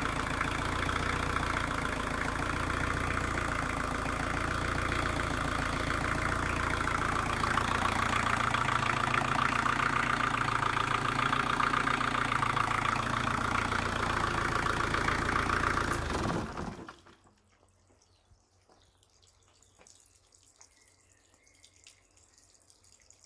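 Thornycroft TK-50 marine diesel engine idling steadily, then shut down about two-thirds of the way through, the engine sound dying away within about half a second. Afterwards only faint small ticks remain.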